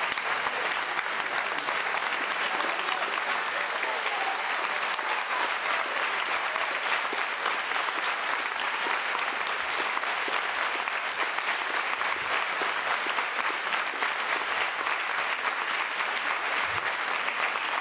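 Audience applauding steadily: a sustained round of clapping.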